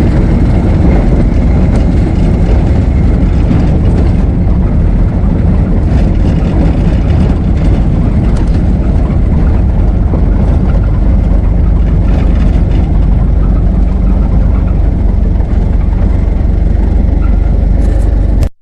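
Ford Model T being driven, its four-cylinder engine running steadily and mostly low in pitch, with a few light rattles; the sound cuts off suddenly near the end.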